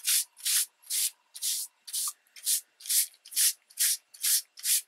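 Soft cloth rubbed briskly back and forth over a magazine page, about three short swishing strokes a second, wearing ink off the page so the texture beneath shows through.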